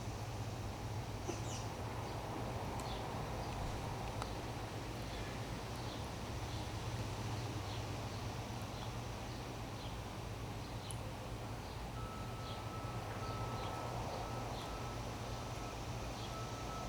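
Many short, high bird chip notes scattered irregularly over a steady low hum. A steady high-pitched tone comes in about three-quarters of the way through and holds.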